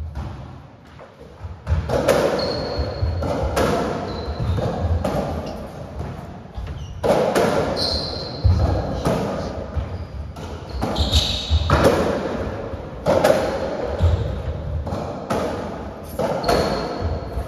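Racketball rally on a squash court: the ball is struck by strung racquets and smacks off the walls every second or two, with echoing impacts. Short high shoe squeaks and footsteps on the wooden floor come between the shots.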